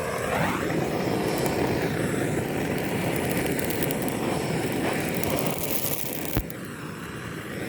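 Gas torch roaring steadily while lighting charcoal for grilling. It starts right after the click of the igniter and drops a little after another click about six and a half seconds in.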